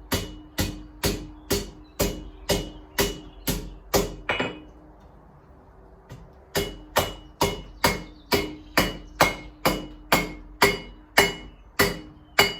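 Hand hammer striking hot steel on an anvil, about two blows a second, each with a short metallic ring. The blows stop for about two seconds midway, then resume at the same pace. This is the fingers of a forged steel hand being bent over the anvil edge.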